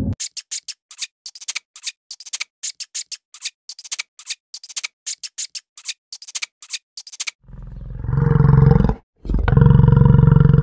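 Quick, irregular crisp clicks from a hamster, then, about seven seconds in, a bison bellowing: two long, deep calls with a short break between them.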